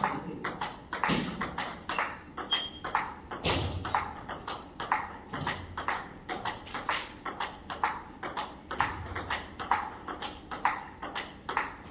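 Table tennis ball clicking back and forth in a fast rally, alternating between the rubber paddles and the table top at several clicks a second.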